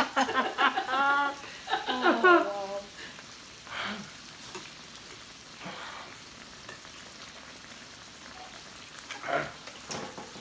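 Meat slices sizzling on a tabletop grill plate around a hot pot, a faint steady hiss. A person laughs loudly over it in the first few seconds.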